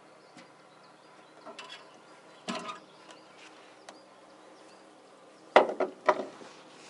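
Handling noises in a small boat as a just-caught ruffe is swung in on the line and unhooked: a few scattered knocks and rustles, with a loud quick cluster of them near the end, over a faint steady hum.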